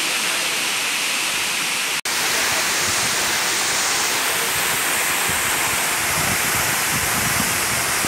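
Waterfall cascading down a rock face into a pool: a steady rush of falling water. The sound cuts out for an instant about two seconds in.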